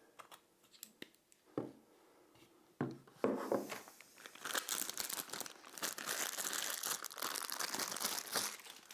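Plastic packaging crinkling and rustling as items are handled out of a speaker box, with a sharp knock about three seconds in and steady crinkling through the second half.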